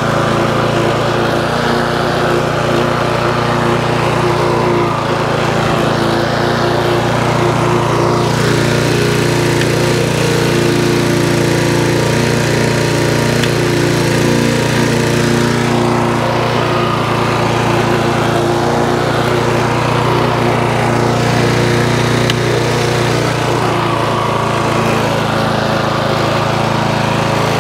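Hayter 41 auto-drive lawnmower's petrol engine running steadily, just adjusted to about the right speed.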